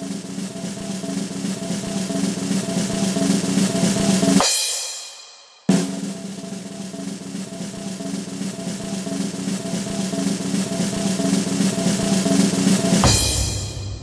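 Snare drum roll played as a suspense sound effect, heard twice. Each roll starts abruptly and grows louder: the first ends about four and a half seconds in, the second starts about six seconds in and ends about a second before the end with a hit and a deeper boom that rings out.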